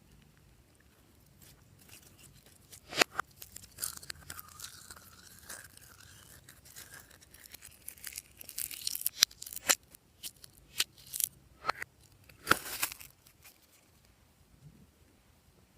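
Glossy slime being stretched and squeezed by hand, giving sticky crackling and tearing sounds with sharp pops, one about three seconds in and a run of them toward the end, before it goes quiet.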